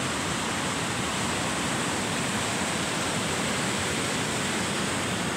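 Water rushing over a weir on the River Wear, a steady, even rush of white water with no change in level.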